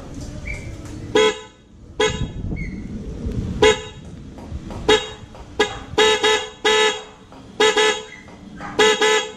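MOCC dual motorcycle horn, both the high and the low horn now wired, sounding in about ten short honks, some spaced apart and some in quick runs. Both horns of the high-low pair are connected, so it gives its full two-tone sound rather than the thin sound of a single horn.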